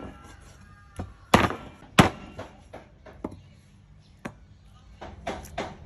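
Meat cleaver chopping raw pork ribs on a wooden chopping block: a few heavy chops, the loudest two about a second and a half and two seconds in, then lighter taps and a small cluster of knocks near the end.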